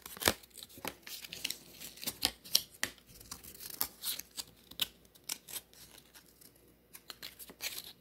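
Close handling of a toy glider's thin plastic stick and printed wing: an irregular string of sharp clicks and scrapes as the pieces are pushed and rubbed together, the loudest click just after the start.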